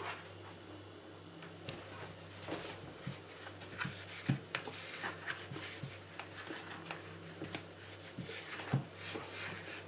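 Hands wiping out the inside of a small white plastic humidifier base with a tissue: rubbing and rustling with scattered clicks and knocks of plastic, the sharpest about four seconds in and near the end.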